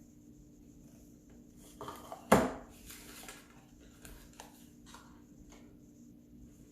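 Small cosmetic products and packaging handled on a tabletop: a few quiet knocks and rustles, with one sharp clack about two seconds in.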